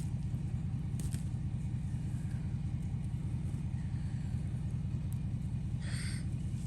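Farm machinery engine running steadily, a low even rumble. About six seconds in, a short, higher-pitched sound rises briefly above it.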